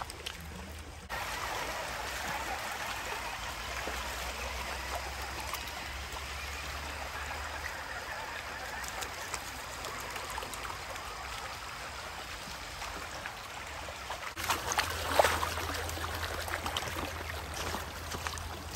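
Shallow creek water running steadily over a rocky bed. About fifteen seconds in comes a short spell of louder, sharper sounds.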